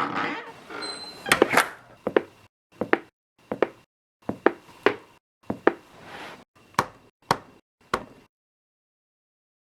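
Home-made foley sound effects: a short noisy rustle, then a run of about a dozen sharp knocks or taps, roughly one every two-thirds of a second, ending about eight seconds in.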